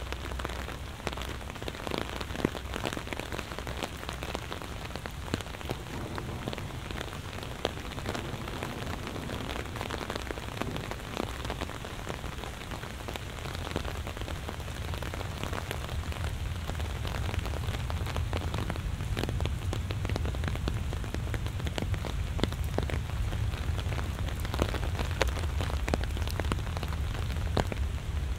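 Heavy rain falling steadily, full of sharp individual drop hits, with a low rumble that builds through the second half.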